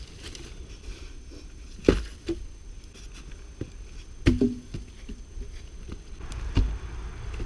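Wooden logs being handled and set down across water: three loud dull knocks about two seconds apart, with lighter clicks and rustles between them.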